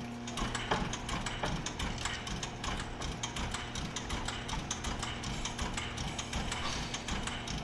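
Turntable turning the D51 steam locomotive, with a fast, rhythmic mechanical clicking and clattering. A steady hum cuts out just before the clattering starts.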